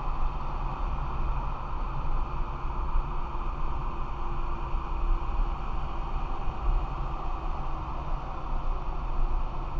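Steady road and engine noise of a moving car, heard from inside the cabin: a low rumble under an even hiss.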